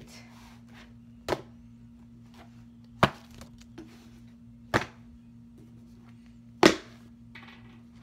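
Sketchbooks set one at a time onto a stack of books held in the hands, giving four sharp thuds about two seconds apart over a faint steady hum.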